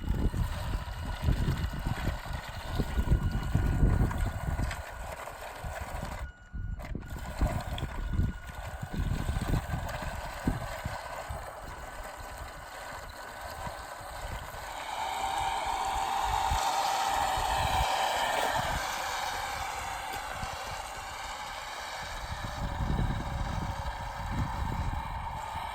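A small RC vehicle's electric motor and gearbox whine as it drives, over an uneven low rumble and thudding. The whine grows louder about fifteen seconds in.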